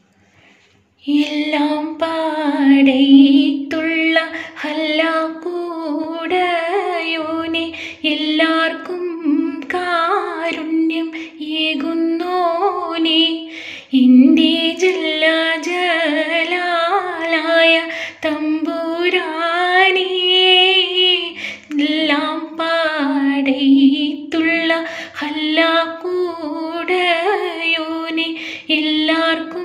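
A woman singing a slow melody with vibrato and long held notes, starting about a second in.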